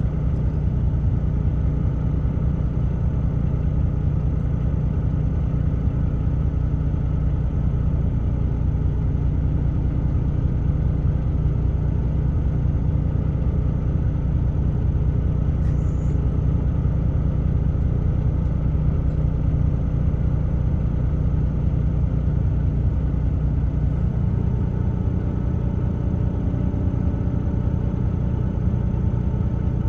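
Truck running down the road, heard from inside the cab: a steady low engine and road rumble. The engine's note shifts slightly about three-quarters of the way through.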